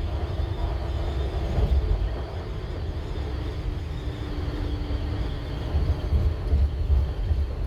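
Steady low engine and road rumble heard from inside a moving coach, with a faint steady whine above it and the rumble swelling briefly a couple of times.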